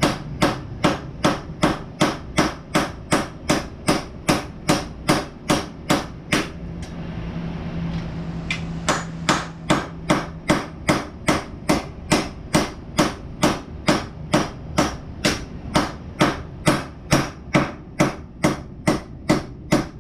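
Hammer blows on a rivet through a metal strap, peening its end over to mushroom it: steady, even strikes about two a second, with a pause of about two seconds some seven seconds in.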